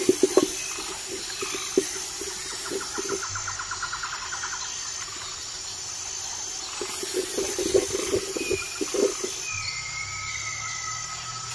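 Metal ladle clinking and scraping against an aluminium cooking pot while stirring: a burst of knocks at the start and another cluster about seven seconds in. Birds chirp and a rapid trill sounds in the background.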